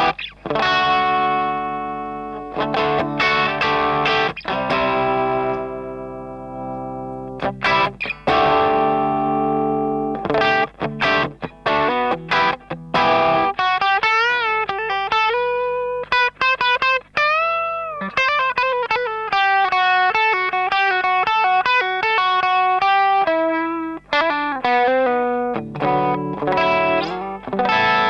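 Electric guitar played through a TS808 Tube Screamer-style overdrive pedal: strummed chords left to ring out, then a single-note lead line with string bends and vibrato through the middle, and chords again near the end.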